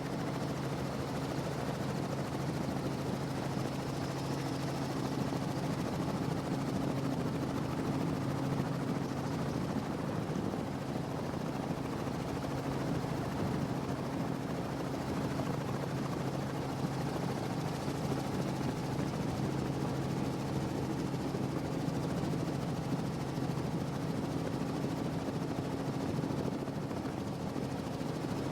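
Steady engine drone holding one constant pitch, without revving or letting up.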